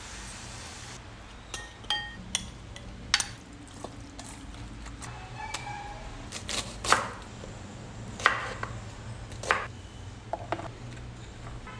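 Food-prep handling sounds: a short pour of oil into a glass bowl at the start, then scattered clinks and knocks of a glass bowl and a metal roasting pan as chicken and onion wedges are handled, the loudest knocks about seven and eight seconds in. A steady low hum lies underneath.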